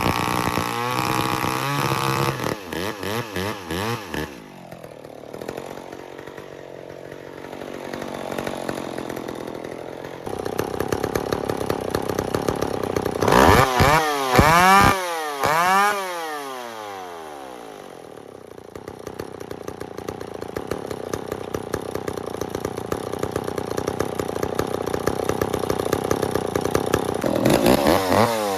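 Vintage McCulloch 10-10 two-stroke chainsaw, loud, revving up and down, dropping back to a lower, quieter running, blipped hard several times midway, then held at a steady pull that builds in level, as when cutting wood, before revving again near the end. It runs a low-kickback safety chain that the owner says fights him in the wood.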